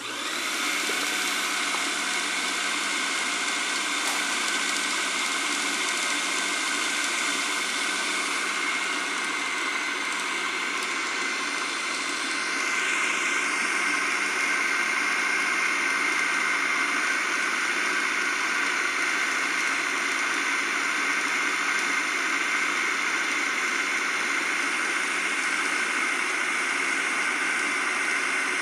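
Electric food processor motor starting abruptly, then running steadily as it grinds a mix of ground meat and bulgur wheat. It gets a little louder about twelve seconds in.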